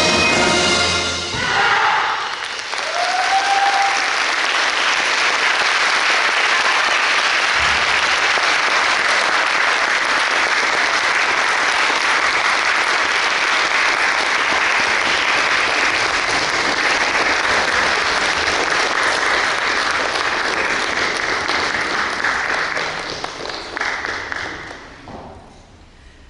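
A marching band's music ends in the first couple of seconds, then an audience applauds steadily, the clapping thinning out and dying away near the end.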